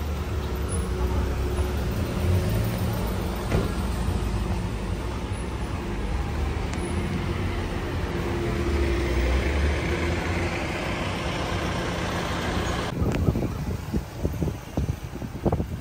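Motor vehicle engine running steadily under road noise, a continuous low rumble. About thirteen seconds in, it gives way to uneven, gusty buffeting.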